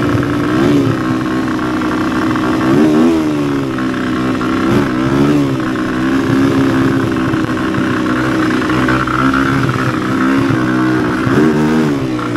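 Honda XR250's single-cylinder four-stroke engine running under way, its revs dipping and rising a few times. It seems to run okay, with the jetting seeming all right after the bike sat for years.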